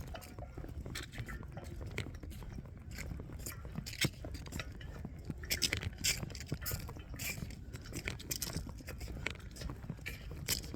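Footsteps on a woodland trail: irregular crunching and scraping over a steady low rumble.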